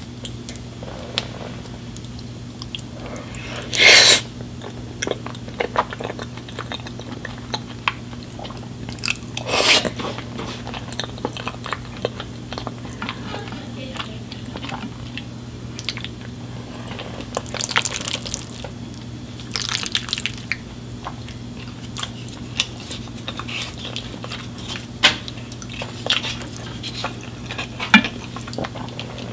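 Close-up eating sounds: chewing with several loud crunchy bites and many small wet clicks, over a steady low electrical hum.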